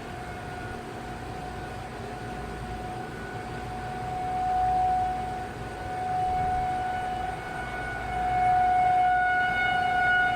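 Federal Signal 2001-SRN outdoor warning siren sounding a steady tone. Its pitch holds while its loudness swells and fades every couple of seconds as the rotating siren head turns.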